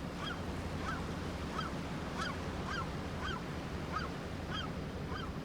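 A gull calling over and over, short sharp calls about two a second, over a low steady rumble of surf.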